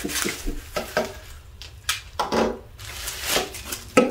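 Bubble wrap rustling and crinkling as a Funko Soda can is unwrapped by hand, then a sharp knock near the end as the can is set down on the wooden table.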